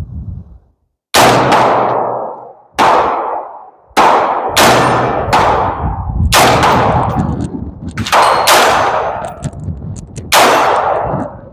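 AR-15 rifle in .223 firing about nine single shots at uneven intervals, each sharp report followed by a ringing decay.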